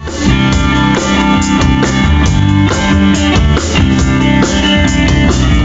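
Band music starting up: guitar with drum kit playing a steady beat, no singing yet.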